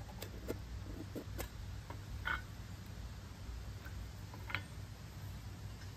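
Small metal char tin being opened and handled: a handful of light, scattered clicks and taps of tin on tin and on a wooden board, the clearest about two seconds in and near the five-second mark.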